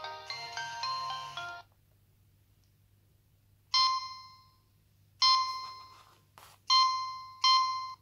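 Nokia 3220 phone playing polyphonic ringtones through its loudspeaker: a quick multi-note melody stops about a second and a half in. After a pause, four separate bell-like notes sound, each dying away, with a short click before the third.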